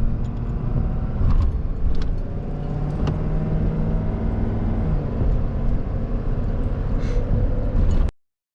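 A vehicle driving on a road, heard from inside the cab: a steady low engine hum under road and tyre noise, with a few faint clicks. It cuts off suddenly near the end.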